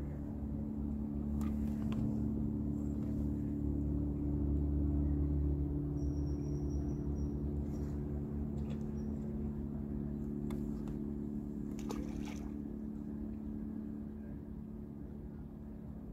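Steady low hum of a distant engine, growing louder to a peak about five seconds in and slowly fading towards the end. A short high whistle about six seconds in, and a few faint clicks.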